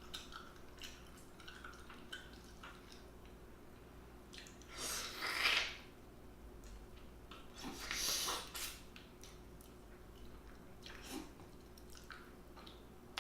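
Close-up eating sounds of a person eating seafood: small wet mouth clicks, with two louder wet slurping sucks about five and eight seconds in.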